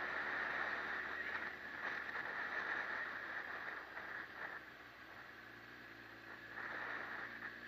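Riding noise from a motorcycle: steady wind and road rush with a faint low engine hum beneath. It eases off somewhat about halfway through and swells again near the end.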